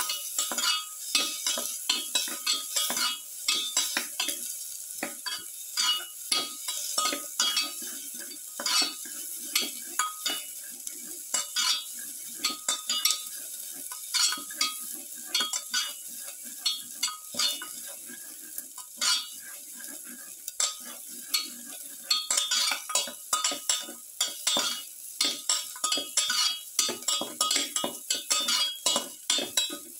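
Garlic cloves and sliced onions sizzling in oil in a pan while a slotted spatula stirs and scrapes them, making frequent irregular scrapes against the pan over a steady sizzle.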